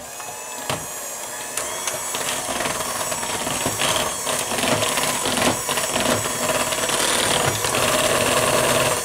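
Electric hand mixer running steadily, its beaters churning thick cake batter; it grows louder over the first couple of seconds, then holds level.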